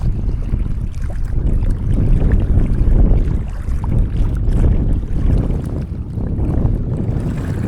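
Strong wind buffeting the microphone: a loud, low rumble that swells and eases.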